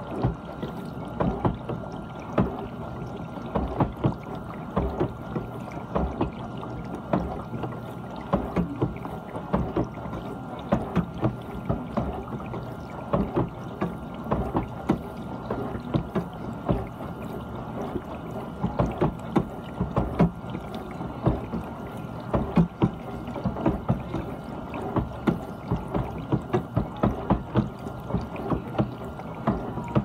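GE dishwasher running its wash, the pump humming steadily with a thin steady whine while water from the spray arms splashes irregularly against the racks and dishes.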